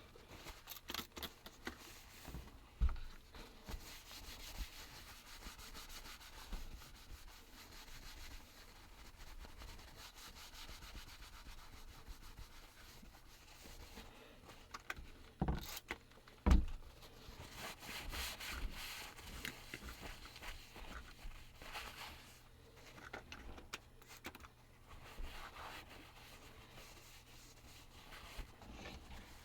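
Faint, intermittent rubbing and scrubbing by hand, with two sharp knocks about a second apart around the middle.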